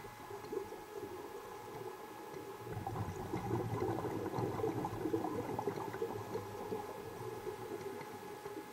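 Scuba diver's exhaled air bubbling and gurgling, heard underwater: air pushed out through the nose to clear a flooded mask, along with regulator exhaust. The bubbling swells a few seconds in and eases off near the end.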